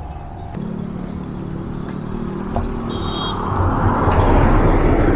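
A motor vehicle going by: a steady engine hum starts about half a second in, then road noise swells to its loudest near the end as it passes.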